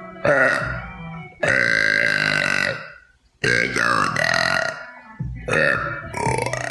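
A young woman burping loudly four times in quick succession, each burp drawn out, the second held for over a second.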